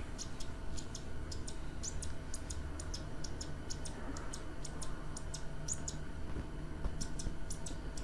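Inline ice-fishing reel ticking as its spool turns, a quick, slightly uneven run of light clicks, several a second, over a steady low hum.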